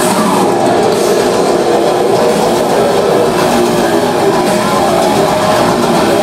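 Heavy metal band playing live: a loud, dense wall of distorted electric guitars and drums.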